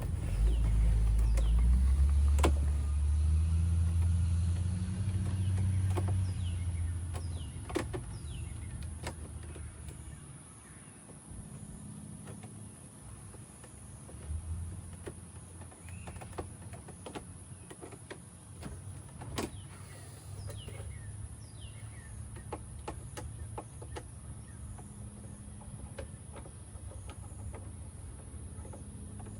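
A low rumble for the first several seconds that fades out, then scattered sharp clicks and knocks of tools and interior trim being worked on a BMW E30.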